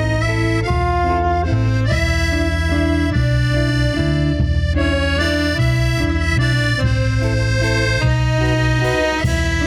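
Live cumbia band playing an instrumental break between sung verses: a melody of held notes over a pulsing bass, with the chords changing every half second or so.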